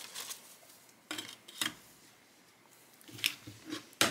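A handful of light clacks and taps with a little paper rustle: a stack of banknotes being set into a clear plastic cash holder and a notebook being handled on a wooden tabletop.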